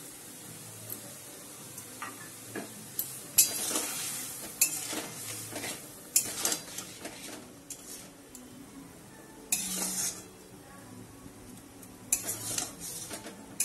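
A metal spatula scrapes and knocks against an aluminium kadai as raw mango slices are stirred through sugar syrup, with the syrup bubbling underneath. The scraping comes in short runs: several strokes a few seconds in, another burst about two-thirds through, and more near the end.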